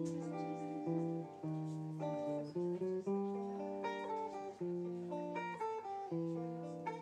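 Acoustic guitar playing an instrumental tango passage: plucked notes and chords, each struck and then fading, with the melody moving over the chords.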